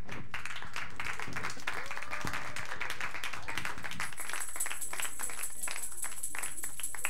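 Audience applauding, a dense patter of many hands clapping that thins to more scattered claps in the second half.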